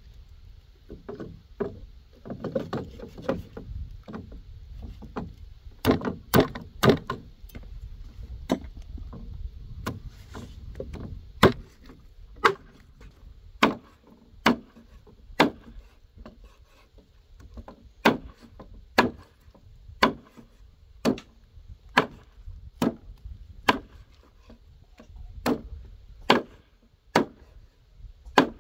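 Cleaver chopping meat on a wooden cutting board: a quick run of three chops a few seconds in, then steady single chops about one a second, with softer cutting and scraping sounds between the first strokes.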